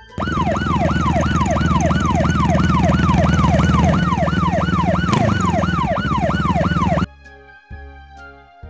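Fire rescue motorbike siren in a fast yelp, about three falling sweeps a second, over a low engine rumble. It cuts off suddenly about seven seconds in.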